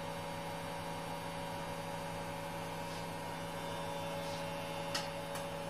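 A steady electrical hum made of several constant tones, with one faint click about five seconds in.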